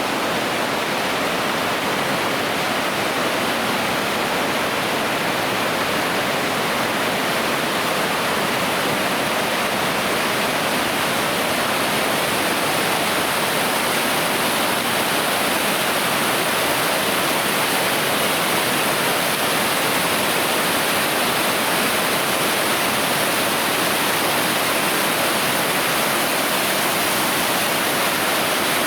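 Waterfall pouring, a loud, steady, even rush of falling water.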